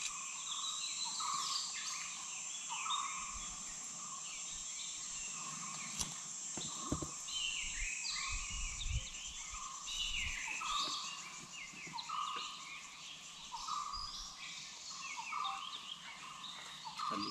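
Forest birds calling in a morning chorus, with many short chirps and one bird repeating a short note about once a second, over a steady high hiss. There is a single click and a brief low rumble midway.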